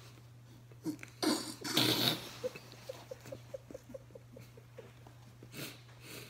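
A person laughing through a mouth stuffed with marshmallows: a sudden rush of breath, then a run of short muffled giggles at about four a second, and another rush of breath near the end.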